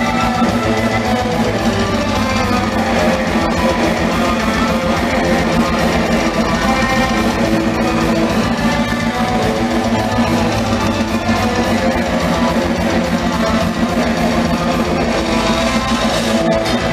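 Heavy metal band playing live: distorted electric guitars and bass over fast, dense drumming, heard from the audience.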